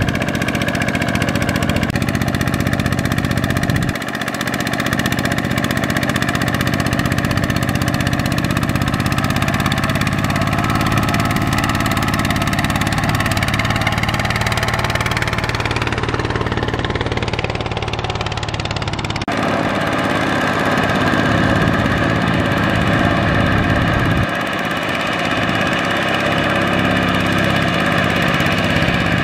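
Single-cylinder diesel engine of a two-wheel walking tractor running steadily under load while it hauls a heavily laden trailer through mud. The engine note changes abruptly a few times.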